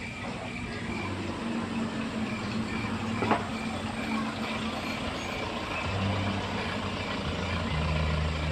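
A vehicle engine runs steadily with a low hum, and there is one sharp click about three seconds in.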